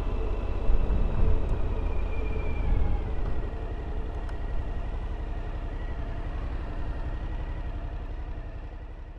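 Motorcycle engine running on the road over a low wind rumble. Its note drops about two to three seconds in as the bike slows, and the sound fades lower toward the end.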